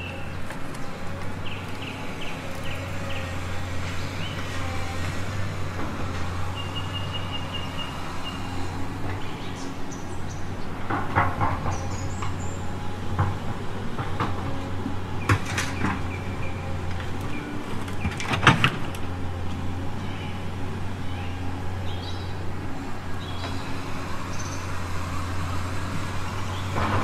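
Radio-controlled model dumper running with a steady low hum. A run of short high beeps comes about seven seconds in, and a few sharp clicks and knocks come in the middle.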